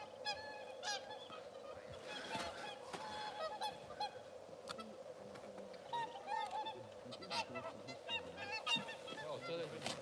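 A flock of whooper swans honking: many short calls overlapping, one after another.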